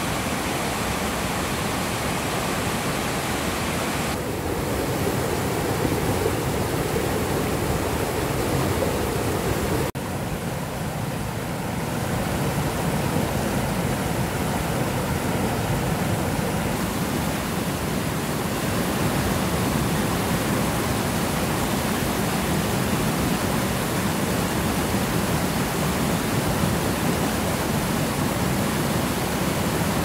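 Mountain stream rushing and splashing over boulders, a steady full rush of white water. Its tone shifts abruptly about four seconds in and again at ten seconds, with a brief dip in level at the second change.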